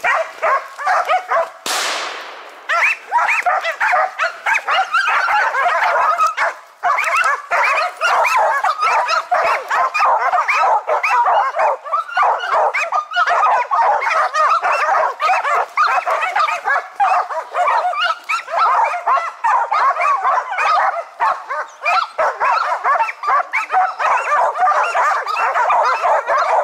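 Karelo-Finnish laikas barking rapidly and without pause up into a tree. This is the hunting laika's treeing bark at a marten holed up in the tree. A short rushing burst of noise cuts in about two seconds in.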